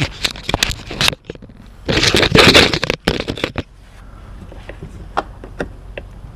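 Plastic clicking, crackling and scraping as the side marker housing and its bulb socket are handled and worked loose. The loudest scraping is about two to three seconds in, with only a few scattered clicks after that.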